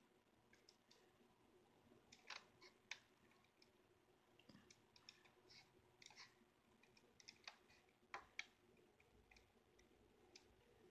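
Near silence with faint, irregular clicks of a computer mouse as lines are drawn in a painting program, a few of them sharper, in a cluster about two to three seconds in and again around eight seconds in.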